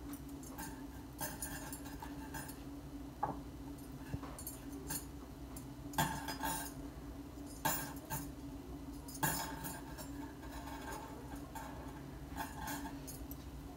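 Spoon clinking and tapping in a small glass bowl of flour paste, with soft rustles and taps of a samosa pastry sheet being handled on a stone countertop. Several short clinks are spread through, over a steady low hum.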